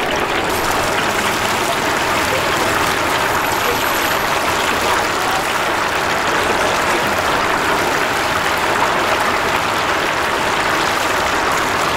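Spring rolls deep-frying in hot oil: a steady, loud sizzle.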